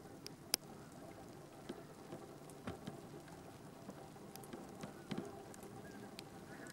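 Faint steady outdoor background hiss with scattered sharp ticks and clicks, the loudest about half a second in and a cluster around five seconds in.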